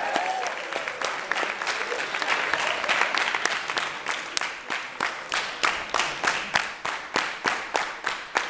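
Audience applauding and cheering. About halfway through it settles into steady rhythmic clapping in unison, about two claps a second.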